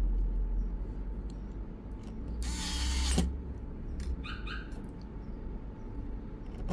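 Cordless electric precision screwdriver whirring once for just under a second, about two and a half seconds in, as it drives a tiny screw into a smartphone's mid-frame. About a second and a half later come two brief high squeaks close together.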